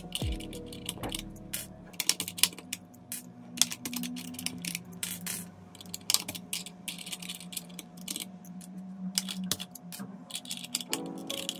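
Mechanical keyboard keys and plastic keycaps clacking in quick, irregular clicks.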